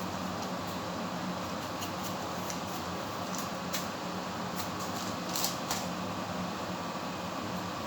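Steady mechanical hum, like a running fan, with a few light clicks and taps of handling about halfway through.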